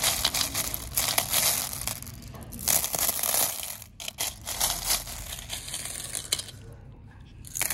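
Small tumbled stones, glass gems and shells clattering and rattling against each other as a hand and a little wicker scoop stir through a bowl of them, in several dense runs with short breaks.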